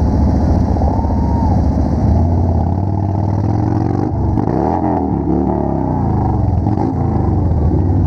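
Several cruiser motorcycles running in a slow procession, their engines a steady low rumble. Around the middle, several engines rev up and down.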